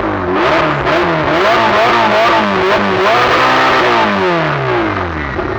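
Ferrari engine being revved hard, with a run of quick blips of the throttle that rise and drop several times a second, then a longer rise and a slow fall as the revs come down near the end.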